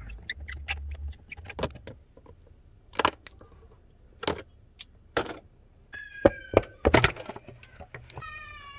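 Irregular sharp clicks and clacks of hand tools and plastic: a screwdriver and pliers working the hose clamps on the air intake, and the plastic air intake duct knocking as it is worked loose. The loudest knocks come about six to seven seconds in.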